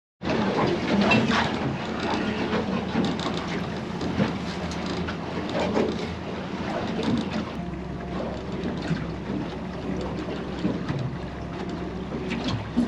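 Small fishing boat under way at trolling speed: a steady low motor hum, with water rushing along the hull and wind buffeting the microphone.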